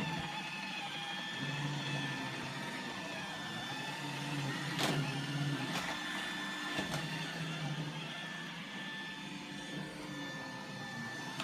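iRobot Roomba 880 robot vacuum running over carpet: a steady motor hum with a high whine. Three sharp clicks come close together about halfway through.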